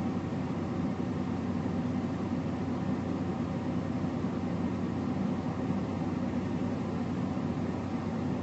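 Steady low hum of a car running, heard inside its cabin.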